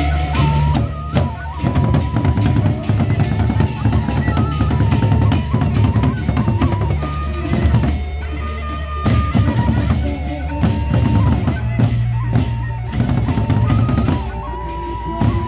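Gendang beleq ensemble playing on the march: large Sasak barrel drums beaten in fast, dense strokes, with clashing cymbals and a deep low hum beneath. A wavering high pitched line runs over the drumming.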